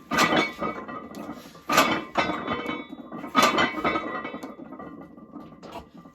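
Metal gym weights clanking: three hard metallic strikes about a second and a half apart, each ringing and fading away.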